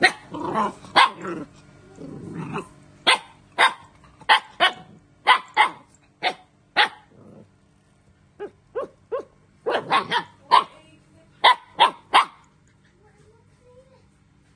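Puppy and young dog at play: about twenty short, sharp barks and yaps in quick bursts, stopping about twelve seconds in.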